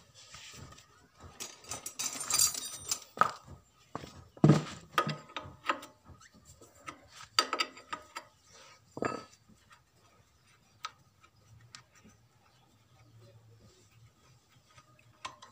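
Metal clinks, scrapes and knocks of a spanner working a fuel-line fitting on a stopped diesel engine's injection pump. The knocks come irregularly, thick in the first half and only a few scattered ones after.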